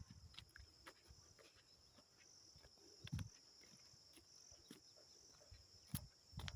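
Faint outdoor ambience: a steady high insect drone, with a couple of soft footsteps on the ground.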